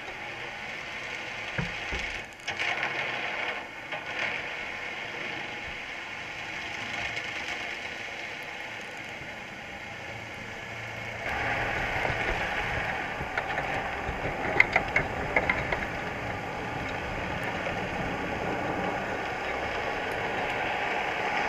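Underwater sound heard through a GoPro's housing inside a crab trap: a steady hiss that gets louder about eleven seconds in, with scattered clicks and a short run of sharper clicks past the middle as Dungeness crabs clamber over the wire mesh and bait bag.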